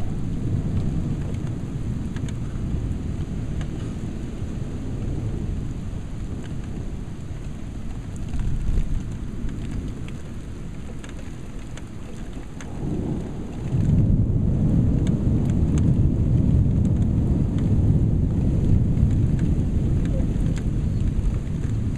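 Heavy rain pouring down through a thunderstorm, with the low rumble of thunder running under it. About two-thirds of the way through, the thunder swells into a louder, sustained rolling rumble.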